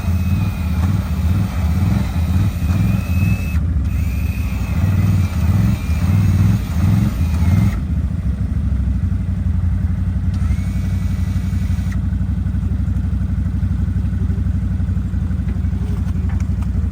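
A motor vehicle's engine running. Its revs rise and fall in uneven pulses for about eight seconds, then it settles into a steady run.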